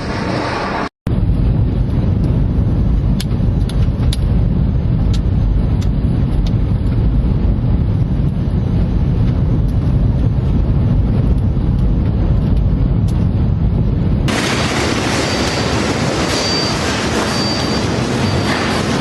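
Strong storm wind buffeting the microphone: a steady, heavy low rumble with occasional clicks. About three-quarters of the way through it changes abruptly to a brighter, more hissing rush of wind.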